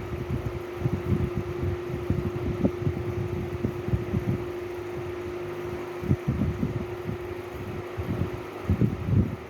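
An electric fan running with a steady hum, its airflow buffeting the microphone in irregular low thumps.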